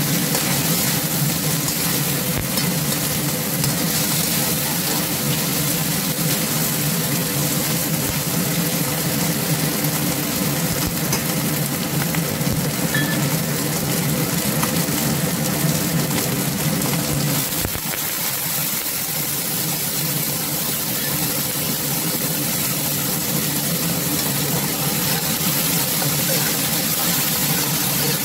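Chicken and pork pieces sizzling in an oiled wok, with a metal spatula stirring and scraping them against the pan. A steady low hum runs underneath.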